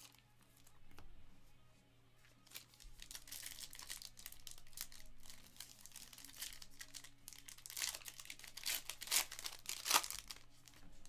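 Foil wrapper of a 2021 Panini Prizm football card pack being torn open and crinkled in the hands: irregular crackling and tearing that gets busier toward the end.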